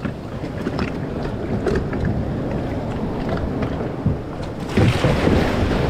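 Wind buffeting the microphone over water washing around a kayak, with scattered light knocks; the rush of water and wind grows louder about five seconds in.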